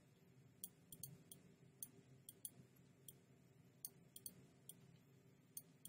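Faint computer mouse clicks, about ten at irregular intervals, over a quiet steady low hum.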